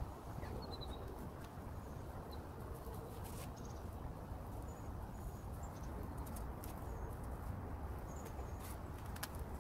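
Faint crinkling and clicking of a plastic grafting strip as it is wrapped and pulled around a grafted plum branch, over a steady low background hiss, with small birds giving brief high chirps now and then.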